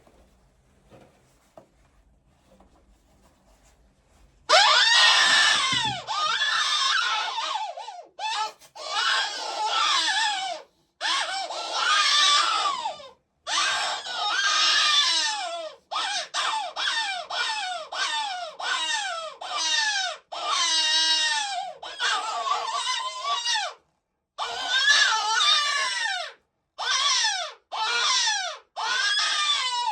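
Hand-blown predator call sounding a prey distress cry to lure coyotes: after a few quiet seconds it starts suddenly, about four and a half seconds in, with loud, high, wavering screams in a string of bursts of a second or two, broken by short gaps.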